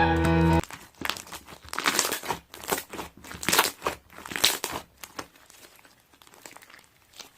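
Slime being squished and stretched by hand: irregular sticky crinkling and crackling, fading toward the end. A sung opera excerpt cuts off about half a second in.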